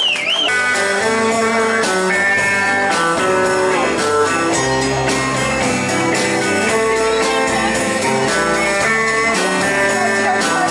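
Live country band playing an instrumental passage: electric guitars carrying a melody over bass guitar and a steady drum beat.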